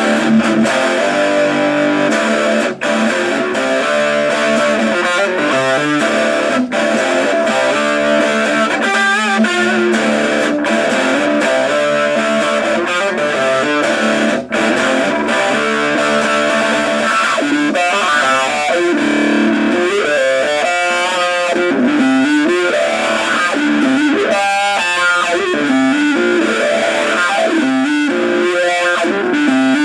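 Electric guitar played straight through a homemade 9-volt battery-powered amplifier built into an ammo can, no pedals in the chain: a steady run of riffs and single notes.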